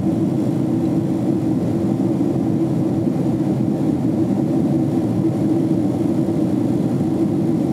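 Steady cabin noise inside a Boeing 767 climbing out after takeoff: the twin jet engines and the airflow over the fuselage, an even low rumble that doesn't change.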